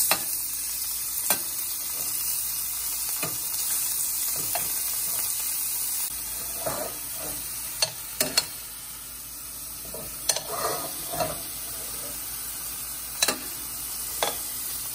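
Chicken pieces sizzling in hot oil in a stainless-steel frying pan, with a metal spoon scraping the pan and clinking against it now and then as it stirs and breaks up the meat.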